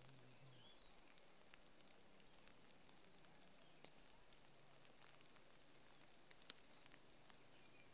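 Near silence: faint outdoor background with scattered small ticks and one sharper click about six and a half seconds in.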